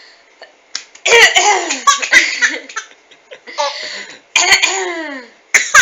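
Coughing, each cough answered by a baby's high-pitched bursts of laughter, in several rounds starting about a second in.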